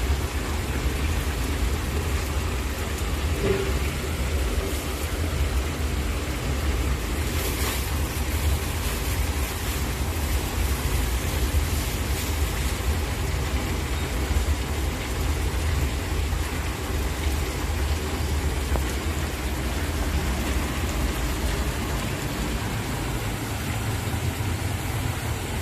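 Meat and julienned carrots frying in hot oil in a large plov kazan: a steady sizzle over a continuous low rumble.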